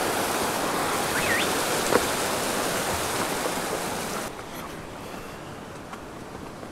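Mountain stream rushing over rocks: a steady hiss of white water that drops to a quieter level about four seconds in. A short rising chirp sounds about a second in.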